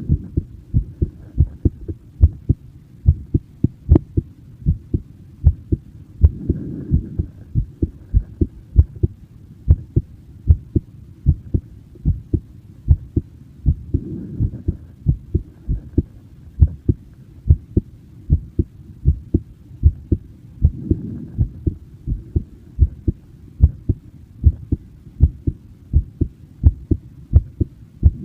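A person's heartbeat recorded up close: a steady run of low, dull thumps, with a soft whooshing swell about every seven seconds.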